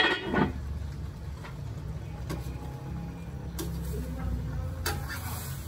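A stainless steel pot lid clanks down with a short ringing, then a ladle clinks a few times against a metal wok of stir-fried vegetables over a steady low rumble.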